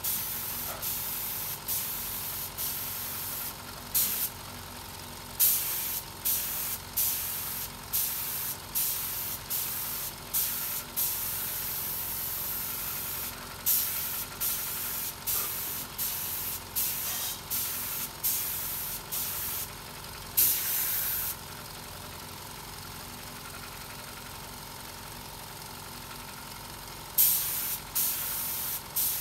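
Compressed-air gun on a coiled air hose firing short hissing bursts, about twenty in all, one held for about a second. A pause of several seconds comes before a last few bursts near the end.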